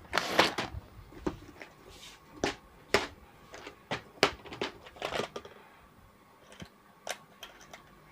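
Clicks and rattles of a clear plastic component organiser box being set down and rummaged through, small parts clinking in its compartments. A quick run of sharp taps over the first five seconds, then a few scattered clicks.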